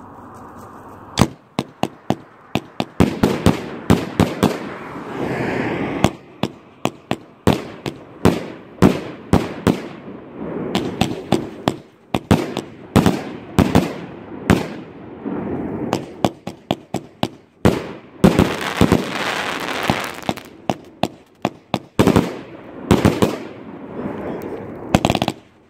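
A 36-shot fireworks cake firing: a rapid, uneven series of sharp bangs, launch thumps and bursting reports, with hissing between them. It starts about a second in.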